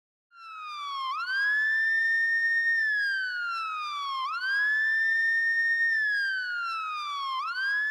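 Police siren wail sound effect: after a brief gap, a single tone rises quickly, holds, then slides slowly down, repeating about every three seconds.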